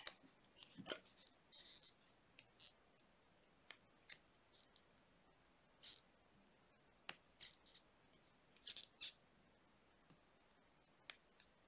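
Faint, scattered clicks and short scrapes of jewelry pliers working 18 gauge copper wire, tucking a cut wire end and coil into place, about a dozen small sounds spread irregularly with quiet between them.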